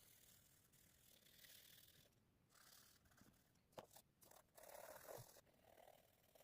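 Faint scratching of pastel strokes on paper, in short uneven passes, with a couple of small clicks about four seconds in.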